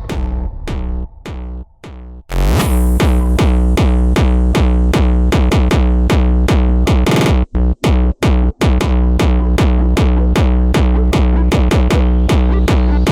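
Techno music: a steady drum-machine kick over a heavy synth bass. About two seconds in, a short break with a rising sweep leads back into the full beat, and a few quick stutter cuts come around the middle.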